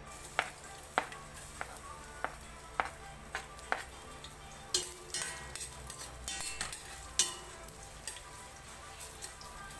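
Sliced ginger sizzling in hot oil in a stainless steel pot while a metal spoon scrapes and stirs it. The crackling thickens about halfway through.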